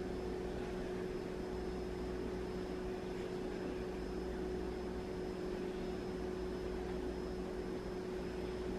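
Steady machine hum with a constant mid-pitched tone and an even hiss, unchanging throughout.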